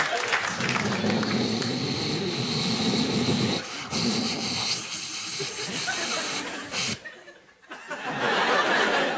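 A man making hissing sound effects with his voice into a microphone, with a thin whistling tone over the hiss in the first few seconds and a brief break near the end.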